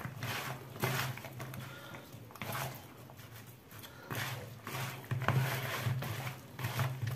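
Sliced raw potatoes and onion, coated in oil and seasoning, being tossed by hand in a plastic bowl: wet rustling and slapping of the slices in irregular bursts.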